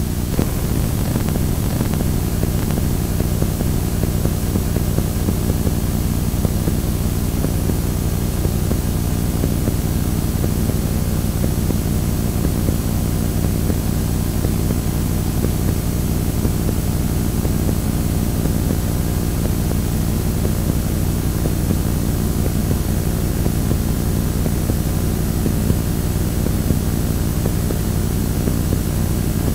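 Steady static noise from a blank Scotch Hi-Fi T-120 VHS tape playing back: a dense low rumble with a fainter hiss above it.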